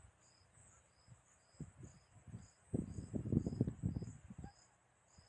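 A cricket chirping steadily, about two short chirps a second. Fainter than a low rumbling noise that comes and goes in the middle.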